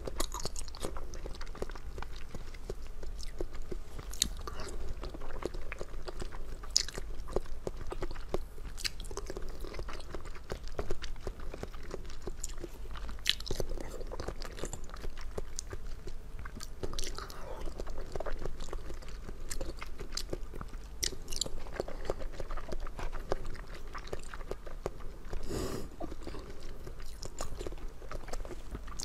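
Close-up chewing and biting of fish-shaped jelly candies, with many short clicks throughout.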